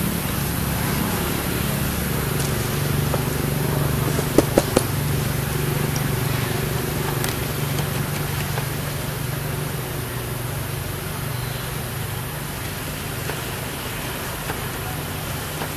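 Steady low engine rumble of background traffic, with a faint hum that wavers slightly. Three sharp clicks in quick succession about four and a half seconds in.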